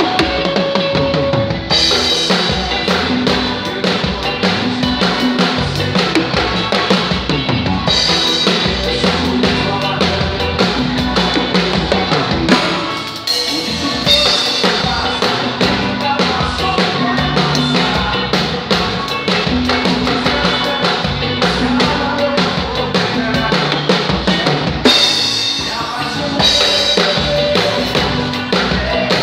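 Acoustic drum kit played live with a band, heard close from the drummer's position: kick drum, snare and cymbals keep a steady groove over keyboards and the rest of the band, with a brief drop in level about thirteen seconds in before the full groove comes back.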